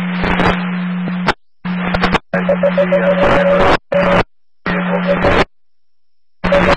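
Police scanner radio traffic: about six short transmissions in quick succession, each a burst of hiss with a steady low hum under it, switching on and cutting off abruptly as the squelch opens and closes. No clear words come through.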